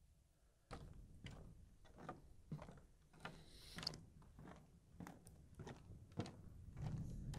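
Quiet footsteps of a person walking, about two a second, starting about a second in, as the walker moves along a path and onto a wooden boardwalk. A brief scuff a little past three seconds in.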